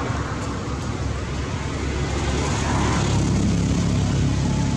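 A steady low engine rumble, like motor traffic, growing a little louder about two seconds in.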